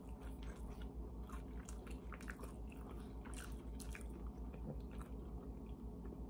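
Faint chewing of chicken bites: soft, irregular crunches and mouth clicks over a steady low hum.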